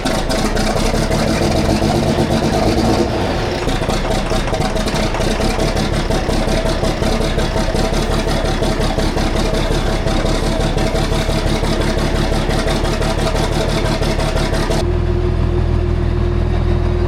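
Tractor engine running steadily with a dense, fast rattle of machinery over it. About 15 seconds in, the sound changes abruptly to a smoother, steadier hum with the rattle gone.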